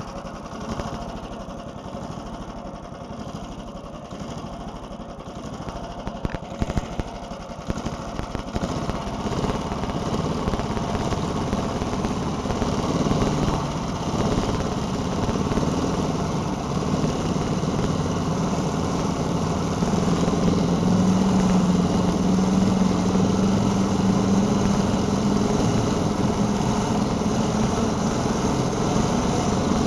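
The small engine of a homemade single-ski snowmobile runs under way. It grows louder after the first few seconds and climbs in pitch near the end as the machine speeds up, with a few knocks from bumps along the way.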